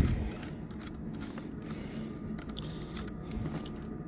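A single knock at the start, then light clicks and rattles of hands handling a plastic heater blower motor housing, over a steady low hum.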